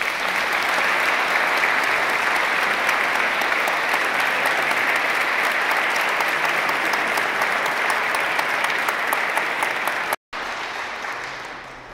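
Large congregation applauding: a dense, steady clapping. It cuts out for a split second about ten seconds in, then comes back and fades away.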